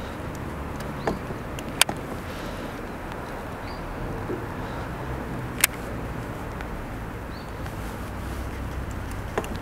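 Steady low rumble and hiss of the open water around a small fishing boat, with four sharp clicks; the loudest come about two seconds in and just before six seconds.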